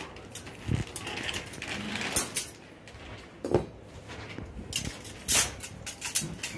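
Stainless steel dish-rack frame and shelf parts clinking and knocking as they are handled and fitted together: several separate sharp metal clicks and clanks, the loudest cluster near the end.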